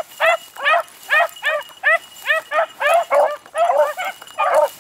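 Beagle hounds baying: short, rising-and-falling barks in a steady run of about two to three a second, with two voices overlapping at times.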